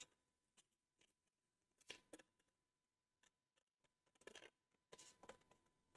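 Near silence, with a few faint, scattered rustles and light taps from hands folding a model aircraft's thin wing skin over its glued ribs.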